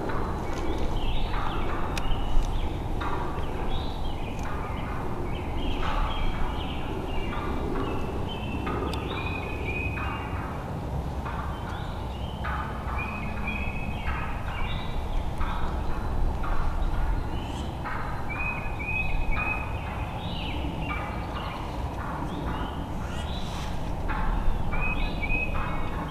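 Wild turkeys calling, many short calls following one another in quick succession.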